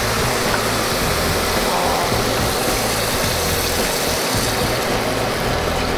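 Water pouring steadily from a plastic jug into a hot pan of chicken thighs, a continuous even splashing.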